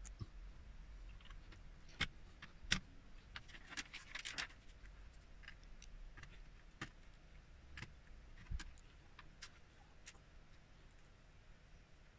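Plastic LEGO bricks being handled and pressed onto a model: faint, scattered sharp clicks, with a brief clatter of loose pieces about four seconds in.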